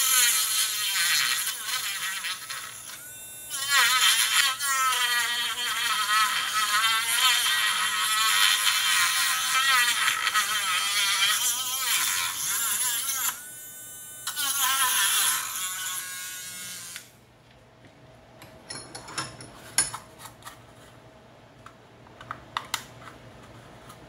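Rotary tool with a small cut-off disc running at high speed and cutting along the plastic seam of an AC adapter case; its whine sags in pitch as the disc bites and recovers. It stops briefly twice and shuts off about two-thirds of the way in. Light clicks and small plastic snaps follow as the case is worked apart by hand.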